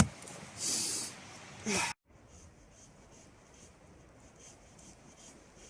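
A sharp knock, then two short scraping strokes of a blade across wet softwood. After about two seconds the sound drops suddenly to a faint hiss.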